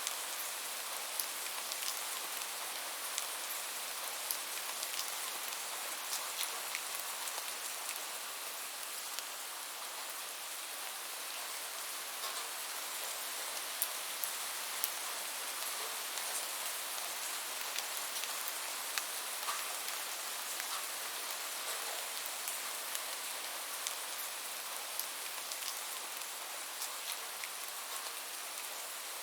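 Steady rain falling, an even hiss with many sharp drop ticks scattered through it.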